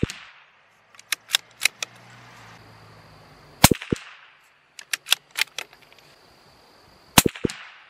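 CZ 457 bolt-action .22 LR rifle firing Norma Match 22 rounds: two sharp shots about three and a half seconds apart, each followed a moment later by a fainter knock. Between shots come quick metallic clicks of the bolt being worked to chamber the next round.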